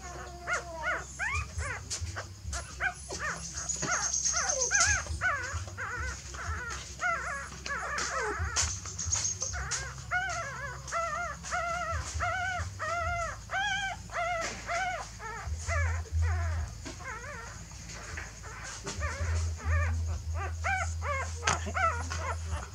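Newborn puppies crying in short, high, arching whines and squeals, about two a second, over and over.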